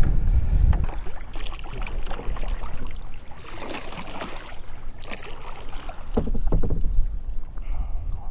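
Water splashing and knocking around a fishing kayak, in scattered irregular bursts, with wind rumbling on the microphone, strongest in the first second.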